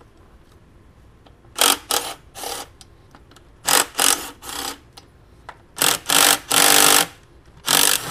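A hand socket ratchet on an extension clicking in several quick bursts of strokes while loosening 8 mm intercooler bracket bolts. The longest run of clicking comes near the end.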